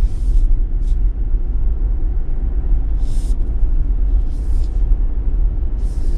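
Car driving slowly on a paved road: a steady low rumble of engine and tyre noise, with several short hisses along the way.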